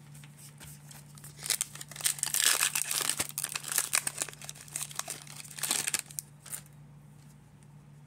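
The plastic wrapper of a 2022 Donruss baseball card pack being torn open and crumpled by hand, a run of crinkling and tearing from about a second and a half in until about six seconds, then quieter handling of the cards.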